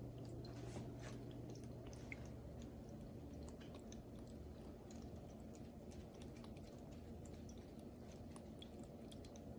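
Small tabletop rock waterfall fountain running, its water trickling and dripping in small irregular splashes over a faint, low, steady hum.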